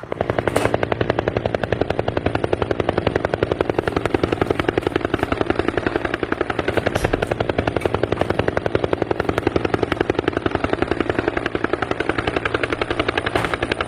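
A steady, rapid mechanical pulsing, about eight beats a second, holding an even rate.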